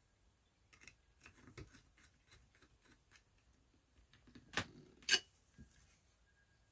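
Scattered light clicks and taps of small hand work, driving screws into a switch mounting, with two sharper clicks a little past halfway.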